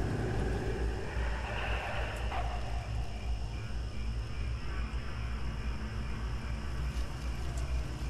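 Night-woods ambience: a steady low wind rumble under a steady high chirring of insects, with a brief falling sound about two seconds in.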